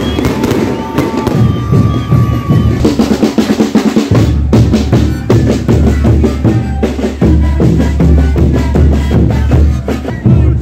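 Andean festival band music dominated by rapid drumming. About four seconds in it cuts to another band: a big bass drum pounding under panpipes (zampoñas) and wooden flutes.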